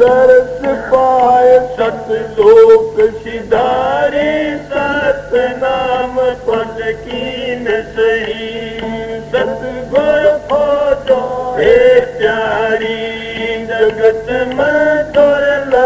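A man singing a devotional shabad (bhajan) in a chant-like melody, over a steady held drone.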